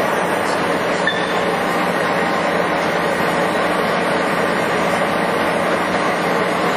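Monarch model CM heavy-duty engine lathe running under power with its spindle and four-jaw chuck turning, a steady mechanical running noise with a low hum underneath.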